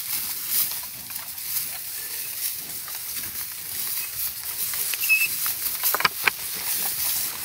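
Yoked oxen walking through dry grass, a steady rustling and scuffing of hooves and plow gear, with a few sharp clicks and knocks about six seconds in.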